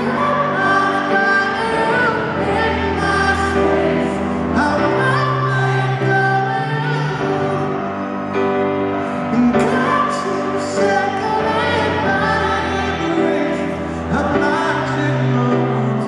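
Live concert music heard from far back in an arena: a slow ballad sung by a high male voice over sustained accompaniment.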